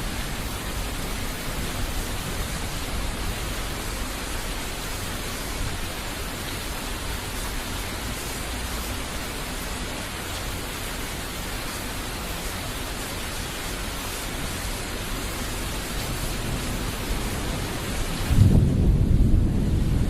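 Thunderstorm: steady heavy rain hiss throughout, with a low thunder rumble fading out at the start and a loud new roll of thunder breaking in near the end.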